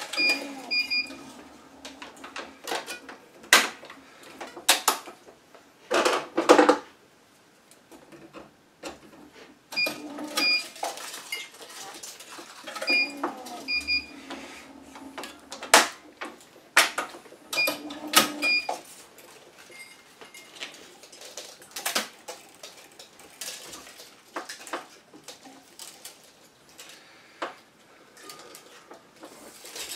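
Tennis racquet being strung on an electronic stringing machine: the tensioner hums four times as it pulls a string up to tension, with short beeps each time. Between pulls, clamps, pliers and the string being handled click and knock.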